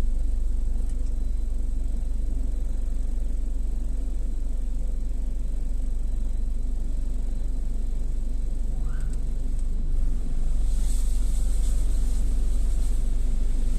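Automatic car wash machinery running with a steady low rumble; a hissing rush, like water spray striking the car, joins about eleven seconds in.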